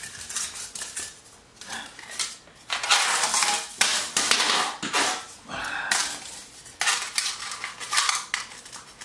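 Thin metal stove windshield being handled and fitted together, with repeated irregular clinks, rattles and scrapes of sheet metal, some against a glass tabletop.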